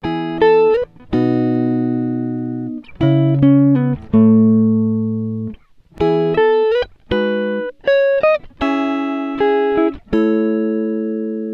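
Background music: a slow melody of single plucked notes that ring and fade, a few sliding in pitch, with no drums.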